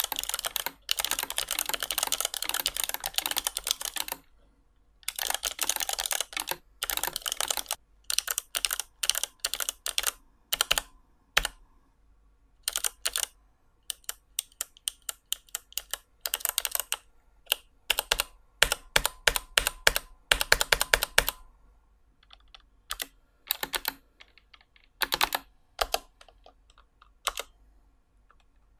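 Typing on a low-profile mechanical keyboard with Outemu Snap Spring Blue clicky switches, the click made by a snap spring rather than a click jacket. Fast continuous runs of keystrokes give way after about seven seconds to shorter flurries and single presses, sparser near the end. The click is not very crisp.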